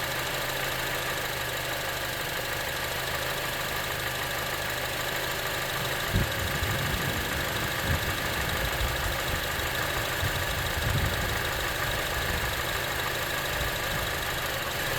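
Honda CR-V's 2.4-litre four-cylinder engine idling steadily. About six seconds in, a thump and the electric radiator cooling fans switch on, adding an uneven low rumble of moving air.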